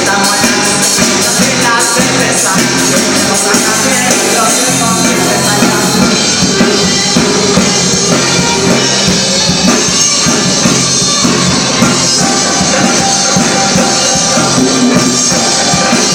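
Live band playing loud rock-style music with a drum kit.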